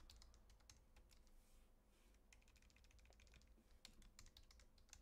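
Faint typing on a computer keyboard: quick key clicks in short runs.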